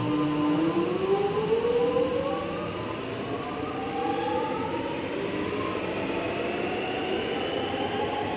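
Suburban electric train pulling away from the platform: its traction motors give a steady whine that begins to rise in pitch about half a second in, several tones climbing together as the train gathers speed, over the rumble of the train.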